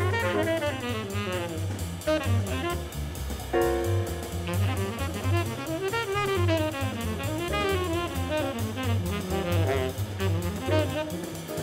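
Up-tempo 1960s hard-bop jazz from a quintet of trumpet, tenor saxophone, piano, double bass and drums: a horn solos in fast up-and-down runs over a steady bass line and busy drums, with a held chord about three and a half seconds in.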